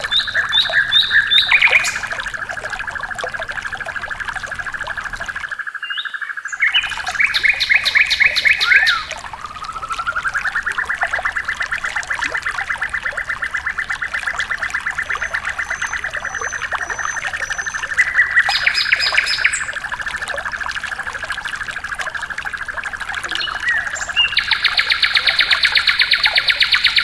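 Recorded birdsong of the kind used as masteran for cage birds, here of sikatan londo and sempur-hujan rimba: a long, fast, even trill with repeated bursts of higher, quicker notes laid over it several times. The sound cuts out completely for under a second about six seconds in.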